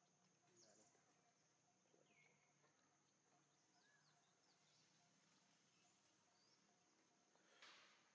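Near silence: faint outdoor ambience with a few faint, scattered chirps and a brief rustle near the end.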